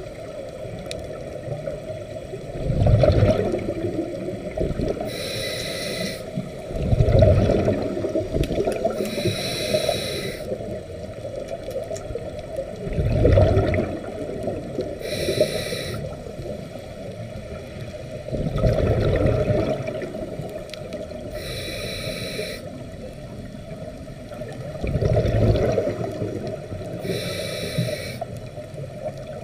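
Scuba regulator breathing, heard underwater: about five breaths, each a short hissing inhale through the regulator followed by a bubbling burst of exhaled air, roughly every six seconds.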